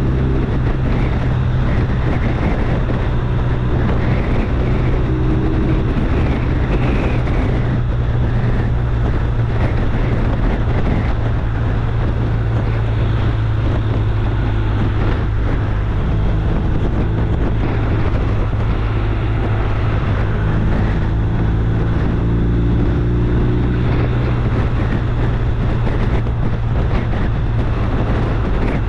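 Steady low engine drone with wind noise on the microphone.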